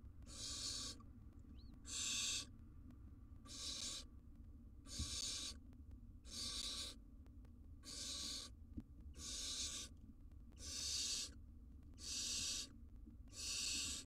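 Barn owl nestling giving its raspy hissing begging call, a 'snore' repeated about every one and a half seconds, each call about half a second long: the food-begging of an owlet while the adult holds prey.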